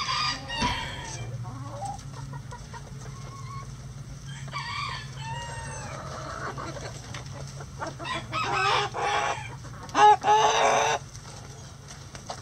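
Backyard flock of hens clucking, with roosters crowing; the two loudest long crows come about two thirds of the way in and near the end.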